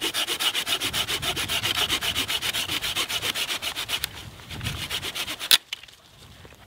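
Bahco Laplander folding saw cutting through a dead branch with quick, even strokes, about six a second. The sawing stops about four seconds in as the cut goes through, followed by some scraping and one sharp knock.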